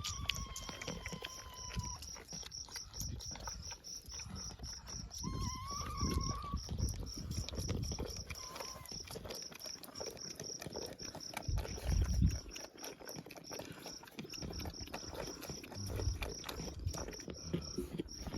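Insect chirping: a steady high-pitched pulse about four times a second, with low thumps and rumbles underneath, loudest about twelve seconds in.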